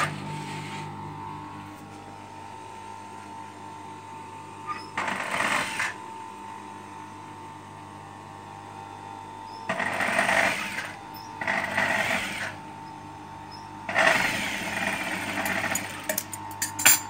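Industrial sewing machine stitching thick pile fabric in four short runs of about a second each, over the steady hum of its running motor. A few sharp snips of scissors trimming the thread near the end.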